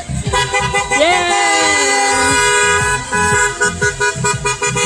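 Several car horns honking together in long, overlapping blasts as cars drive by, with a person cheering "Yeah!" once.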